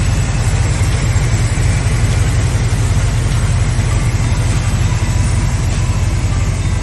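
An engine idling steadily, with a low, even pulsing.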